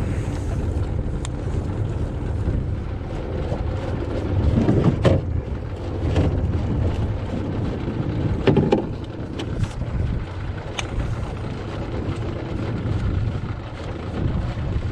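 Small boat motor idling steadily, with wind buffeting the microphone. Two short, louder noises stand out, about four and a half and eight and a half seconds in.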